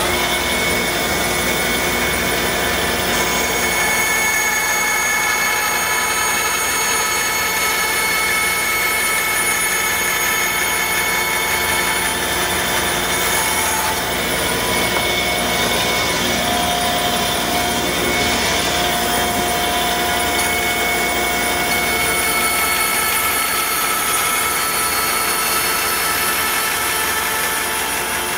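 Bandsaw running steadily and cutting through a birch plywood panel, a continuous machine whine with several steady high tones.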